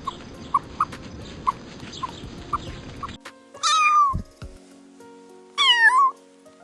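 Short, evenly repeated animal calls over a noisy background, then a domestic cat meowing twice, each meow about half a second long and the loudest sounds here, over steady background music.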